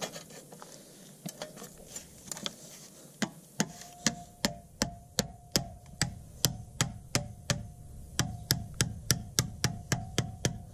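Plastic-faced mallet hammering a sheet-metal patch over the edge of a stone block to bend it, with a faint ring from the metal after each blow. A few scattered blows come first, then from about three seconds in a steady run of about three blows a second.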